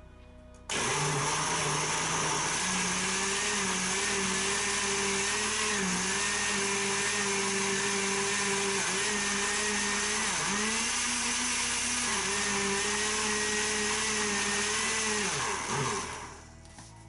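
Countertop blender motor switched on about a second in, its pitch rising as it comes up to speed, then running steadily as it blends sliced strawberries, bananas and milk into a smoothie, with a few brief dips in pitch as the load shifts. It is switched off near the end and winds down.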